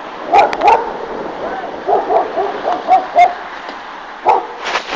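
Stray dog barking: two barks near the start, then a quick run of short barks about two seconds in.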